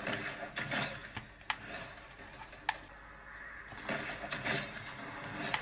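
Shooter-game sound effects playing from an Asus ROG Phone 5s Pro: a busy run of in-game noises, with two sharp clicks about a second and a half and nearly three seconds in.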